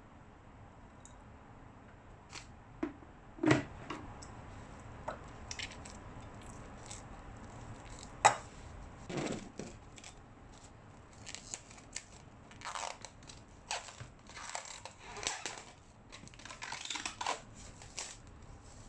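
Plastic cling film pulled off its roll, torn and crinkled as it is stretched over a bowl, in clusters through the second half. Before that, a few sharp knocks, the loudest about eight seconds in.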